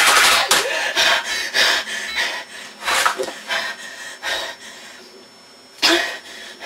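A boy's agitated, heavy breathing and snorting mixed with keyboard clatter, in irregular short bursts. They come every second or so at first, thin out, and one loud burst comes near the end.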